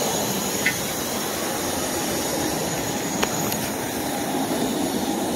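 Steady outdoor background rumble and hiss of urban noise, growing slightly louder near the end, with a couple of faint clicks.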